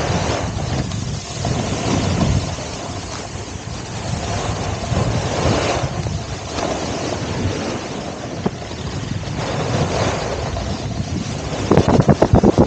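Skis sliding through slushy spring snow on a descent: a steady hiss and rumble that swells and fades, with wind buffeting the microphone. The buffeting turns louder and more rapid near the end.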